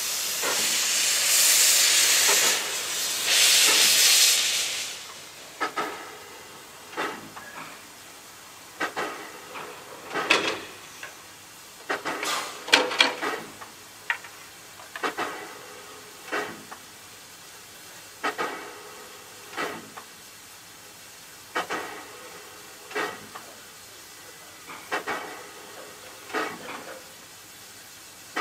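Vale of Rheidol narrow-gauge 2-6-2 tank engine No. 8 hissing loudly with steam for the first five seconds, in two swells, as steam blows out low at its front. It is followed by a run of short, sharp steam puffs roughly every one and a half seconds.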